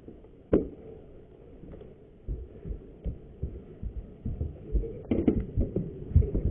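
Irregular low thumps and knocks, a sharp one about half a second in, then coming more often and louder in the last second and a half.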